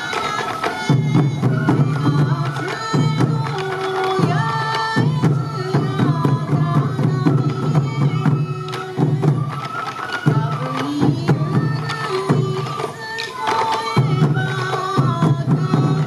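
Traditional Sansa Odori festival music played live: hand-carried taiko drums beaten in a steady, driving rhythm under a stepping melody line typical of the bamboo flute (fue).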